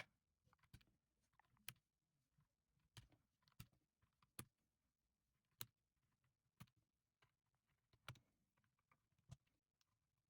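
Keys on an Akko M1 V5 mechanical keyboard with EPOMAKER Bluebird switches pressed one at a time, slow and irregular, about one short click a second.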